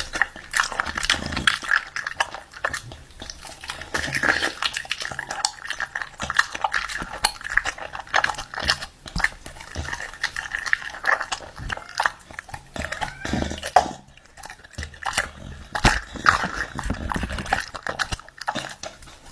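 A pet dog making high, wavering vocal sounds, with many sharp clicks and clatters throughout.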